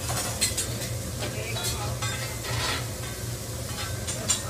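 Egg frying on a hot teppanyaki griddle, with a metal spatula repeatedly scraping and clicking against the steel plate over a steady low hum.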